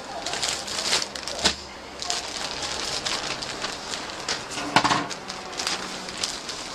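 Clear plastic bag crinkling and rustling as gloved hands handle a fur garment packed inside it, in irregular bursts with a few sharp crackles, the loudest about two-thirds of the way through.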